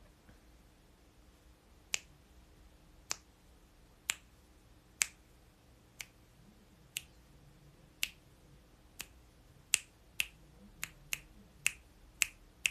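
A series of short, sharp clicks, about one a second at first and coming faster in the last few seconds.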